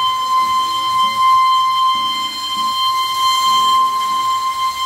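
Darjeeling Himalayan Railway toy train sounding its whistle: one long, steady blast at a single unchanging pitch.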